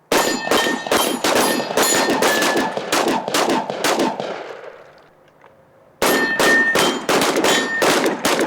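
Rapid strings of gunshots, about three a second, each hit answered by a ringing clang of steel targets: one string of about a dozen shots that dies away about four seconds in, then a second string starting about two seconds later.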